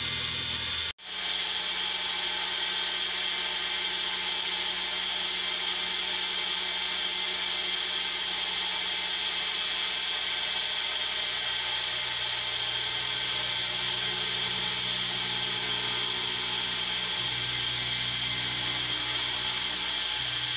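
End mill cutting 2017 aluminium in a CNC milling machine: steady spindle and cutting noise with a high whine. The sound breaks off for an instant about a second in, then carries on.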